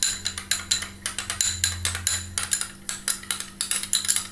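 A spoon stirring white glue and water in a small bowl, clinking against the bowl in a quick run of ticks, about five a second.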